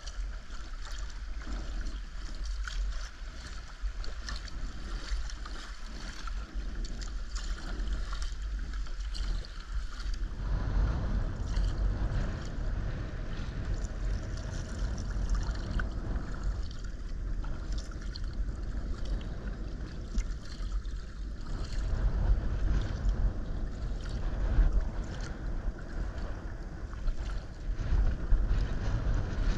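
Sea kayak paddle strokes: water splashing and dripping off the blades and lapping along the hull. From about ten seconds in, wind buffets the microphone with a low rumble.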